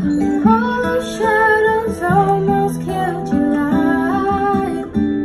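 A young woman singing into a handheld microphone, amplified through PA speakers, with acoustic guitar accompaniment.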